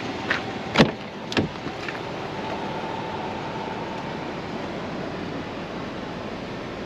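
Front door of a 2024 Jeep Grand Cherokee Limited being opened: a light click at the handle, then a loud clunk of the latch releasing and a second, smaller clunk about half a second later as the door swings open. Steady background noise follows.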